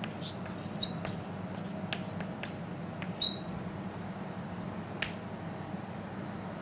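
Chalk tapping and scratching on a blackboard as an equation is written, with brief high chalk squeaks about one second in and again about three seconds in, and a sharp tap about five seconds in. A steady low hum runs underneath.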